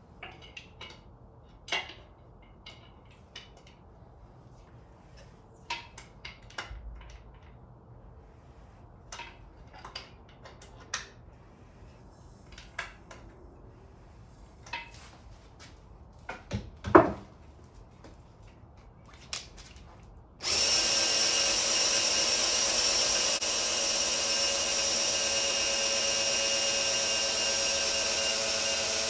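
Scattered clicks and knocks of tool handling, one sharp knock about two-thirds of the way through. Then, about 20 seconds in, a cordless drill starts up and runs steadily with a whine, spinning an oil-pump priming tool to push break-in oil through a freshly built engine's oil system.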